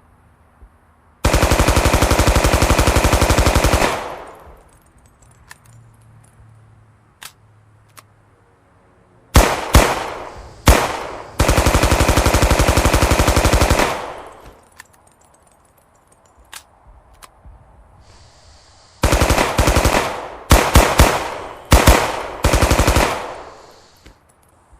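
Thompson 1921 submachine gun in .45 ACP firing on full automatic: a burst of about three seconds, three quick short bursts, another long burst, then a string of five or six short bursts. Faint single clicks sound in the gaps between bursts.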